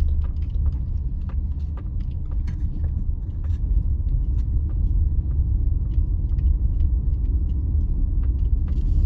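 Car driving slowly on a road: a steady low rumble of tyres and engine, with scattered light ticks and clicks over it.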